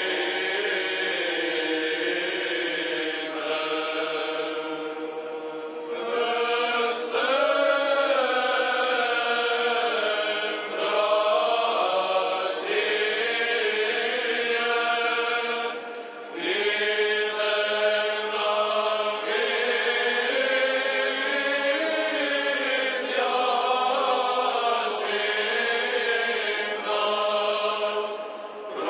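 Choir singing Orthodox liturgical chant, several voices together in sustained phrases with short breaks between them.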